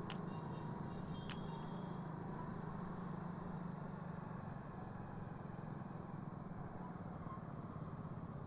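Motorcycle engine running steadily while riding through town traffic, with road and wind noise. A few faint clicks and short high tones sound in the first second or two.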